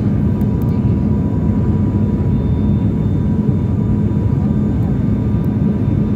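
Airliner engine drone and airflow heard inside the passenger cabin during the landing approach: a loud, steady low rumble with a few steady hum tones running through it.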